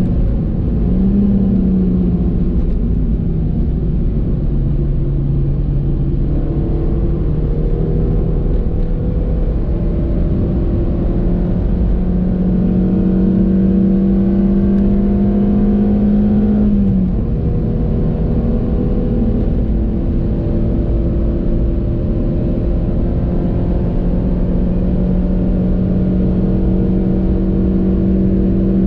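Stock 1.6-litre four-cylinder engine of a 2014 Suzuki Swift Sport, heard on board under hard driving. Its pitch climbs slowly for about ten seconds, drops sharply a little past halfway, then holds and rises again, over a steady low road and tyre rumble.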